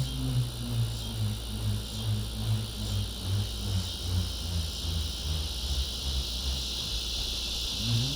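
Bull roarer being whirled: a low, pulsing hum that sinks in pitch and dies away as the spin slows, then swells and rises again at the very end. Loud cicadas buzz steadily throughout.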